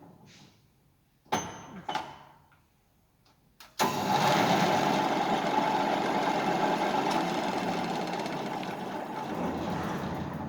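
2A125 vertical drill press: two clunks, then about four seconds in its motor switches on and the spindle gearbox runs with a steady dense mechanical whirr. The whirr eases off slightly near the end.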